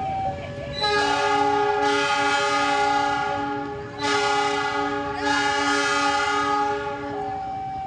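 Locomotive horn sounding two long, loud blasts of about three seconds each, a chord of many tones held steady. At the start and end a level-crossing warning alarm beeps in an alternating two-note pattern.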